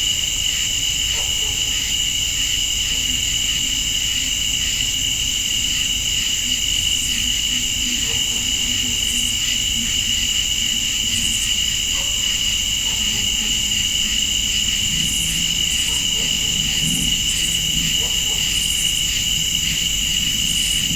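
Night insect chorus: crickets trilling steadily at two pitches, with short bursts of a higher buzzing insect every few seconds over a low steady hum.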